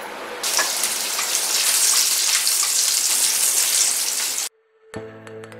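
Hot oil sizzling loudly as food fries, cutting off suddenly about four and a half seconds in. Bright electronic music with clicking starts just before the end.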